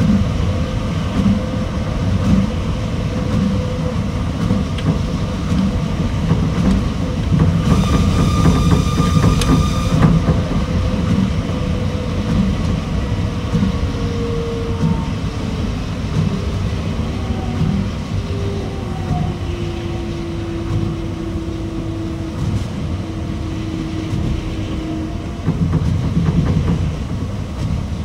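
Osaka Monorail 2000 series straddle-type rubber-tyred monorail running, heard onboard: a steady low rumble with regular thumps about once a second. A brief high whine comes about eight seconds in, and a motor whine falls slowly in pitch over the second half.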